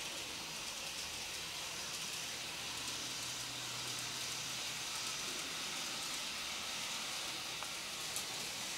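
Kato N gauge Type 8620 steam locomotive and Series 50 carriages running on a model track loop: a steady soft hiss of wheels on rail and the small motor, with a faint low hum for a couple of seconds as the train comes near.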